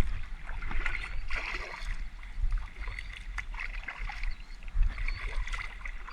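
Kayak paddle strokes dipping and splashing in the water, in patches about a second in and again near five seconds, over a low rumble of wind on the microphone.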